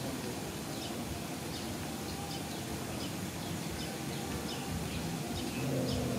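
Small birds chirping in short, scattered calls over a steady low background hum.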